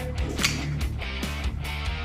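Background rock music with strummed electric guitar over a bass line and a beat.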